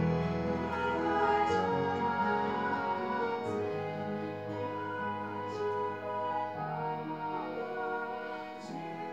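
Live harmonium, electronic keyboard and acoustic guitar playing held chords that change every two or three seconds, with a woman's voice singing a slow melody over them.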